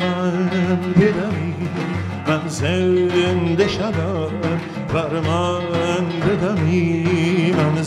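Traditional Iranian music on oud with a daf frame drum, a wavering, sliding melody with vibrato over a sustained low tone.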